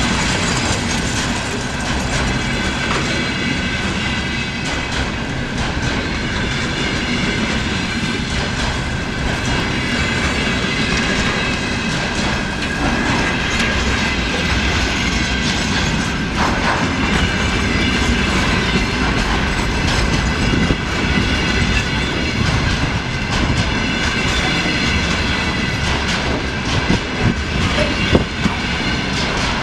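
Freight train of container flatcars rolling slowly past, wheels clacking over rail joints, with a steady thin squeal from the wheels.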